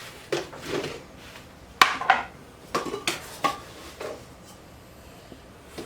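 Utensils knocking and scraping against a mixing bowl while brown sugar is scooped and measured into it: several short clinks and scrapes in the first few seconds, then quieter.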